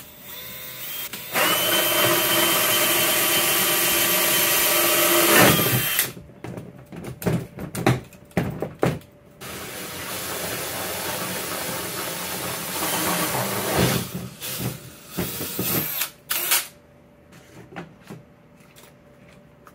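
DeWalt cordless drill with a hole saw cutting through a plastic tote lid: a steady motor whine for about four seconds, then a few seconds of knocks and rattles, then a second, longer run of cutting that ends in a few clicks.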